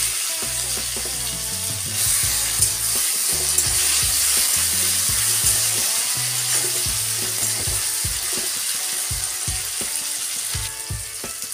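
Chopped tomatoes sizzling loudly in hot mustard oil in a kadai, just added, while a metal spatula stirs and scrapes them around the pan. The sizzle eases a little near the end.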